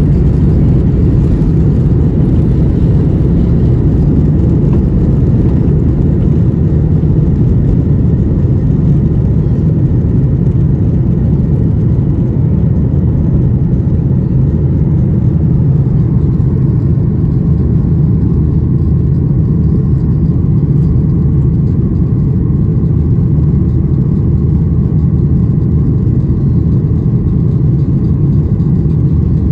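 Boeing 737-800's CFM56-7B jet engines at takeoff thrust, heard from inside the passenger cabin as a loud, steady rumble through the takeoff roll, liftoff and initial climb.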